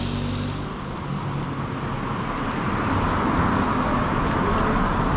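Road traffic: a motor vehicle's engine hum fades about a second in, then a rushing road noise grows steadily louder toward the end.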